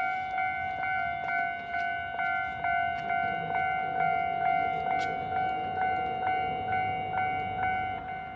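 Japanese railway level-crossing warning bell ringing, the electronic 'kan-kan' tone struck about twice a second at an even pace, each strike ringing on into the next. It is the signal that a train is approaching and the crossing is closing.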